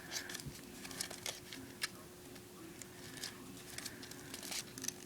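Paper rustling and crinkling in the hands as an origami fold is pushed down and pressed into place, in short scattered clicks and crackles.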